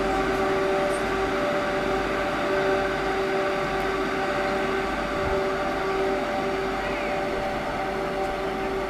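WCAM-class electric locomotive running its blowers and motors: a steady hum made of several held tones that drop out briefly now and then, over a rushing noise.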